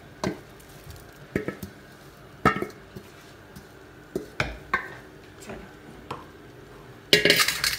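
Wooden spoon knocking and scraping shredded cooked beef out of a steel bowl into a pot, a string of separate knocks. A louder, rougher clatter of cookware near the end.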